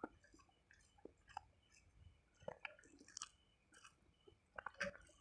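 Faint chewing of food with the mouth closed: soft, wet clicks scattered through the chewing, with a quicker cluster near the end.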